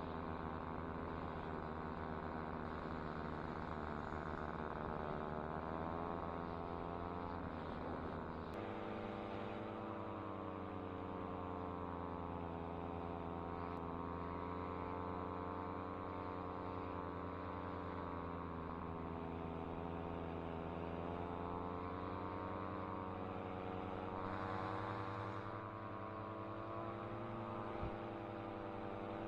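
Air Conception Tornado 280 paramotor's two-stroke engine and propeller running steadily. The pitch wavers slowly with the throttle, rising briefly and then shifting abruptly about eight seconds in.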